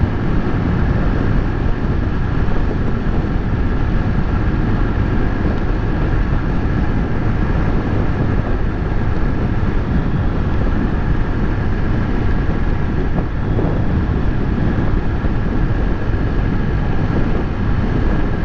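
Honda Titan 125 ES motorcycle's single-cylinder four-stroke engine running steadily at cruising speed, with wind noise on the microphone.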